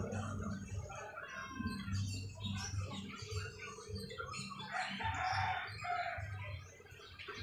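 Chickens clucking, with a rooster crowing about five seconds in.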